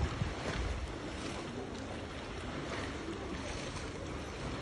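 Steady rush of moving water, with low buffeting on the microphone about the first second.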